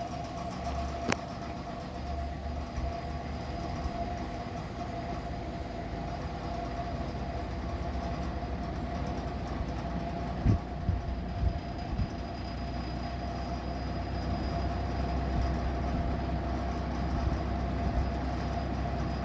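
Lau Ultra 20 box fan running on medium speed: a steady motor hum with a low rumble that slowly grows louder. A sharp click about a second in, and a few dull thumps between about ten and twelve seconds in.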